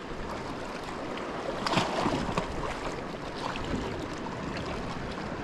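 Sea water washing steadily against shoreline rocks, with a brief louder rush about two seconds in. Faint clicks come from a spinning reel being wound in during a surface-lure retrieve.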